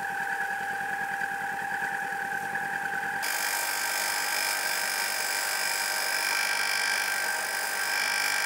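Ryobi belt and disc sander's electric motor running with a steady whine while rock is sanded wet on it. About three seconds in, the sound changes abruptly to a harsher, hissier whine.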